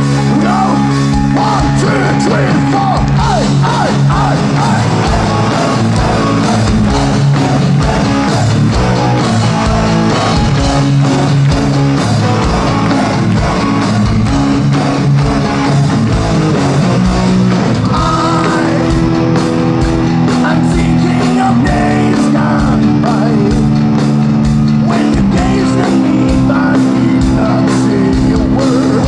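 A hard rock band playing live and loud: distorted electric guitars, bass and drums in a steady, dense wall of sound.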